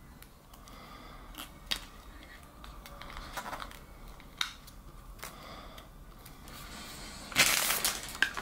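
Small plastic clicks and taps as a PVC figure's feet are worked onto its round plastic display base, then a louder half-second clatter about seven seconds in as the base is set down on a wooden table.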